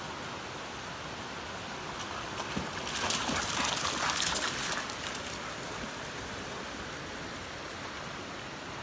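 Steady rush of creek water. About three seconds in, a louder rustling, crackling noise lasting about two seconds as a wolf dog comes right up to the microphone.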